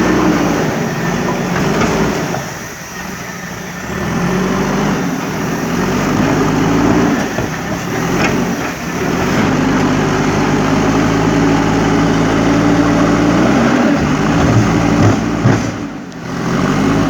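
JCB backhoe loader's diesel engine running under work, its revs rising and falling, with a lull about three seconds in and another near the end.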